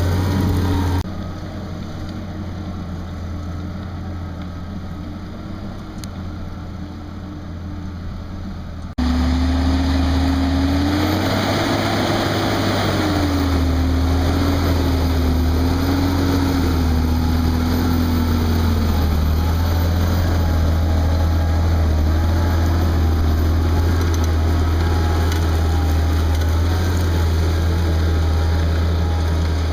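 Fendt 936 tractor's diesel engine running steadily under load while pulling a seven-furrow plough, a deep constant drone. The sound drops abruptly about a second in and comes back just as abruptly about nine seconds in, with a whine that rises and wavers for several seconds after that.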